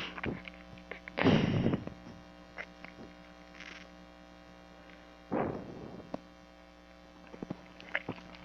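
Steady low electrical mains hum in the recording, with two short loud rushes of noise about one and five seconds in and a few faint scattered clicks.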